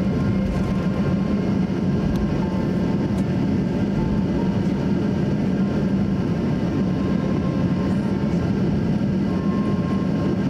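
Cabin noise inside a Boeing 737-800 taxiing: the steady hum of its CFM56-7B engines and air system, with faint steady whining tones above.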